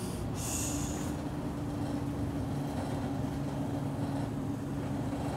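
Scania N94UB bus engine running steadily at idle in a traffic queue, heard from inside the cabin near the front: an even drone with a steady hum. A short hiss of air about half a second in.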